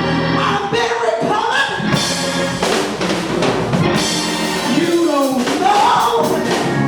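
Live gospel music in a church: a drum kit and other instruments playing, with a voice singing over them.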